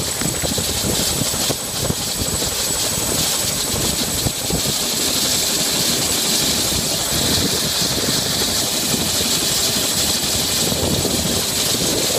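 Turbine helicopter running on the pad with its main rotor turning: a steady rushing engine and rotor noise with a thin, constant high whine.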